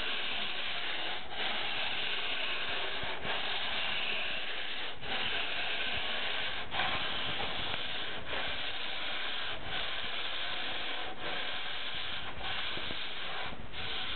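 Hand sanding block rasping along a foam surfboard blank in long full-length strokes, a steady hiss broken by a short pause about every second and a half as the stroke reverses. The strokes even out bumps and low spots along the length of the board.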